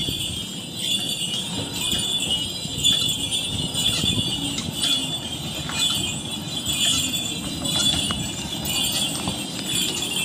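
Horse-drawn tram passing on its rails, with a steady jingling of bells over a low rumble.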